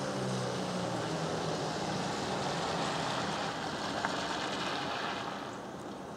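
Tornado siren winding down, its falling tones fading out within the first second. A steady rushing noise follows, with a single sharp click about four seconds in, and eases off near the end.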